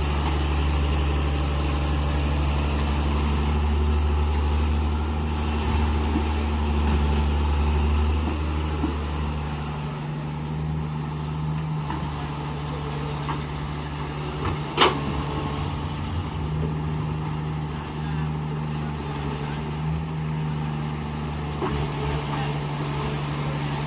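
A heavy construction machine's diesel engine running steadily, its deep low note dropping away about ten seconds in. A single sharp bang about fifteen seconds in.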